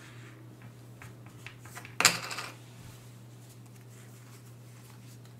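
Board game components handled on a table: a few light clicks, then one sharp clatter about two seconds in that dies away within half a second.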